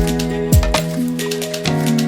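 Background music with a steady beat: a deep electronic kick drum about every 0.6 s under sustained synth chords and hi-hats.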